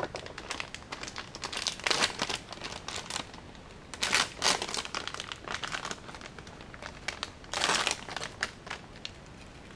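Plastic packaging crinkling in irregular bursts as hands unwrap a 3D printer's LCD screen module, loudest about 2 s, 4 s and 7.5 s in.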